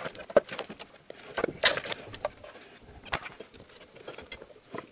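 Irregular metallic clicks and knocks of a wrench with a long extension being handled and worked against the engine's bolts and valve cover.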